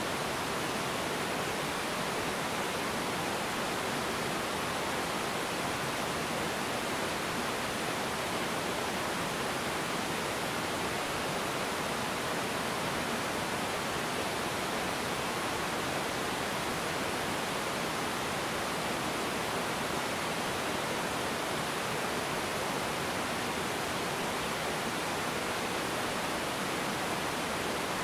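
Small river waterfall and rapids: a steady, even rush of water spilling over rocks.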